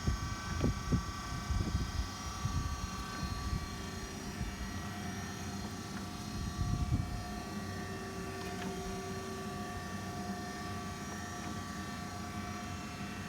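DoAll D6-1 surface grinder running: a steady mechanical hum carrying several constant high whining tones, with some uneven low thumps in the first couple of seconds.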